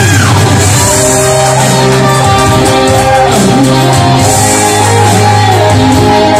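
Live rock band playing a power ballad: a high held vocal note drops away right at the start, then an electric guitar carries the melody with bent notes over drums, cymbals and a low bass line.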